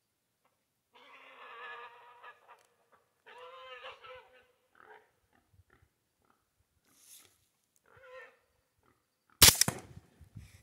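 Wild hog squealing in two drawn-out bursts, followed by a few shorter, fainter calls. Near the end comes a single sharp, loud bang.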